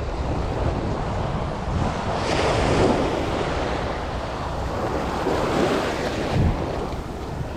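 Surf breaking and washing up a sandy beach, with wind buffeting the microphone; one wave swells louder about two and a half seconds in.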